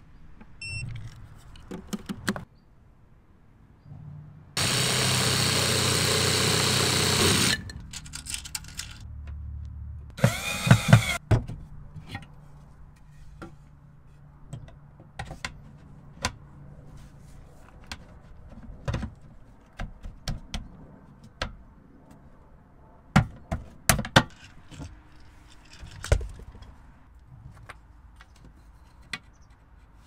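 Do-it-yourself build sounds: a power tool runs loud and steady for about three seconds, then a second tool briefly whirs up and back down. Scattered knocks and clicks of wooden boards and laths being handled follow.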